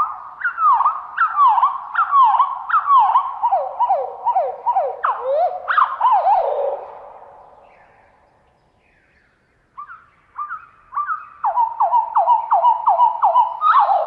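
Common chaffinch song played back slowed down four times, so it comes out low and drawn out: a run of falling slurred whistles, about two a second, that fades away, then a second song phrase starts about ten seconds in.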